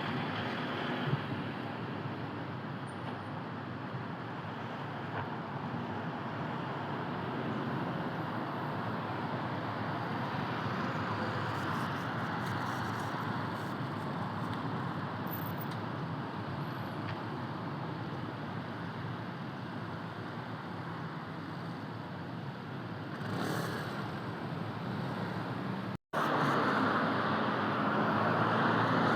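Steady road-traffic noise with no distinct events, cut off by a brief dropout near the end and resuming a little louder.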